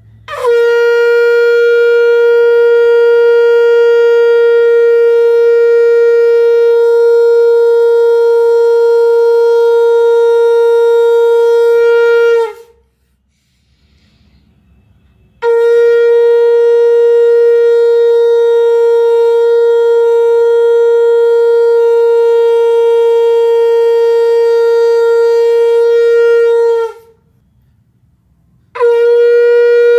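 Conch shell (shankh) blown in long held blasts, each one steady note with a bright, buzzy ring. There are two blasts of about twelve seconds each with short pauses between them, and a third begins near the end. Each note dips slightly in pitch as it stops.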